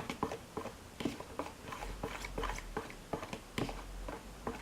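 A fork stirring white wood glue in a container, making irregular clicks and taps against the sides, several a second.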